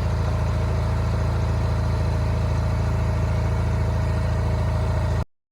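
Kubota ZP67 rice transplanter's engine idling steadily, after its transmission and rear-axle oil have been changed; the sound cuts off abruptly about five seconds in.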